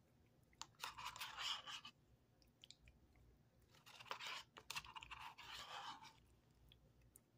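A person chewing a mouthful of cookie dough Blizzard with sprinkles, in two short faint stretches with small clicks from the mouth.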